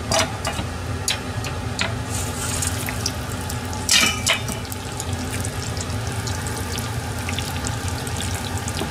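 Sardine fish balls deep-frying in oil at 190 °C for their second frying: the oil bubbles and sizzles steadily. Sharp clicks in the first two seconds and a loud clatter about four seconds in come from the balls going into the pot and the metal strainer being handled.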